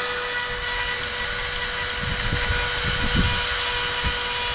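Hand-held rotary die grinder with a small burr running at steady high speed, grinding corrosion out of the aluminium powerhead's raw-water cavity where the oil return passage leaked, to clean it up for welding. A steady high whine over the grinding noise, growing rougher as the burr bites in around the middle.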